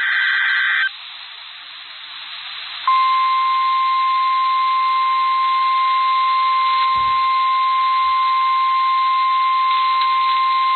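NOAA Weather Radio alert sequence heard through a radio receiver with static hiss. The end of the SAME digital header burst stops just under a second in. After about two seconds of static, the steady 1050 Hz weather radio warning alarm tone begins and holds, signalling that a warning broadcast follows.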